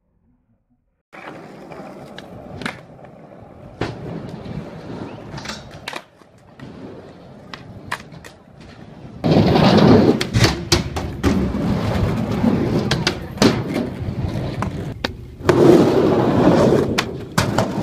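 Skateboard wheels rolling on concrete and asphalt, with repeated sharp clacks of the board hitting the ground. It starts about a second in and gets much louder from about nine seconds in.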